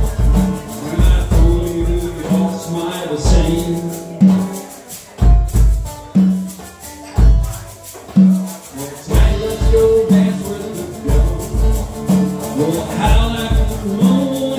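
Live acoustic guitar strumming with a conga-style hand drum keeping a steady beat in an instrumental passage. The drum hits thin out to a few sparse strokes midway, then the full rhythm comes back.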